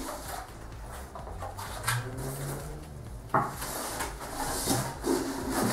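Packaging being handled while unboxing a monitor: rustling and light knocks as parts are lifted out of the box, with a sharper knock about three and a half seconds in.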